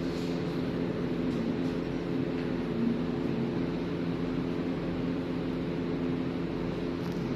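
A steady machine hum: several constant low tones over an even hiss, unchanging in level.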